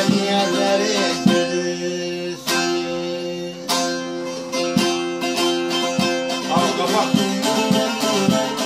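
Bağlama (Turkish long-necked saz) playing an instrumental passage of a Turkish folk song: quick plucked strokes over steadily ringing drone strings. A sung note trails off in the first second.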